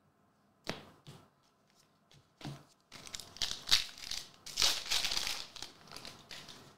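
Foil wrapper of an Upper Deck Goodwin Champions trading card pack crinkling and tearing as it is opened by hand, after a couple of light taps in the first second.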